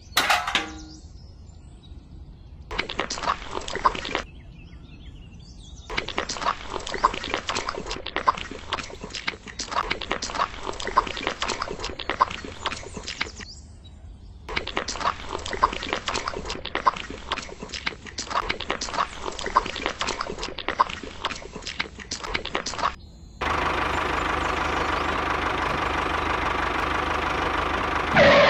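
A metal spoon scraping and clicking against a small mixer drum, a tin bucket and wet cement, in several separate takes with short gaps. Near the end a steady engine running sound starts abruptly.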